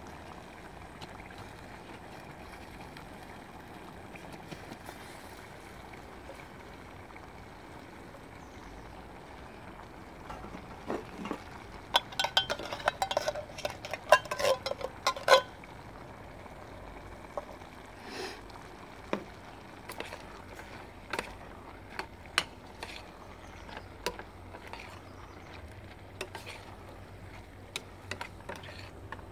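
Sliced mushrooms shaken out of a tin can into a steel pot, a burst of clattering knocks and taps about halfway through, then a spoon stirring the pot with single clinks every second or two, over a steady hiss.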